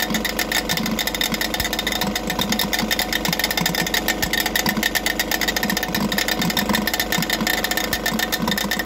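Motor-driven piston unit running with a fast, even knocking. A loose half-oval part, apparently come off one of its two bolts, is striking inside the casing and has punched a hole through it.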